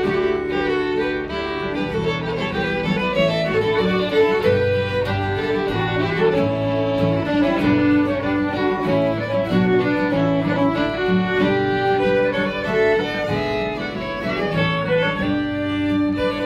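Fiddles and an acoustic guitar playing a tune together, the fiddles carrying the melody over strummed guitar chords.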